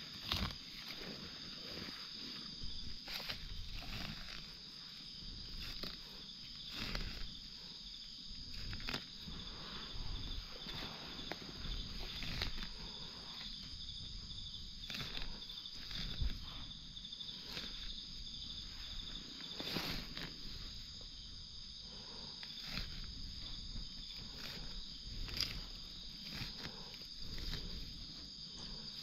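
Steady high-pitched drone of a forest insect chorus, with scattered rustles and knocks close by from someone moving and picking through the ground cover.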